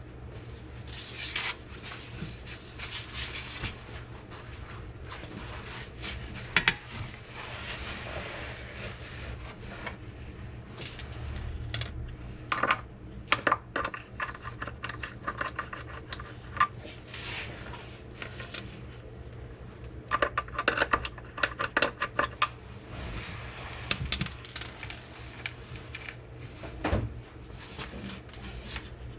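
Metal hand tools and sockets clinking and clattering, with runs of rapid clicking, during work on a car's transmission mounts.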